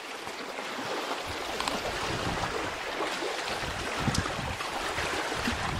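Wind buffeting the microphone over a steady wash of lake water lapping, the low rumble of the wind coming in gusts from about a second in.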